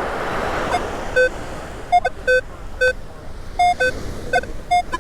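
Minelab Manticore metal detector giving a string of short target beeps in two alternating pitches as it is swept over a buried target reading in the low 60s. A wash of surf sounds behind the beeps in the first second or so.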